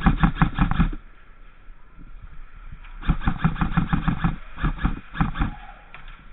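G&G M4 Raider electric airsoft rifle firing in bursts of full-auto fire: rapid, evenly spaced shots, a burst ending about a second in, a longer one about three seconds in and a shorter one just after.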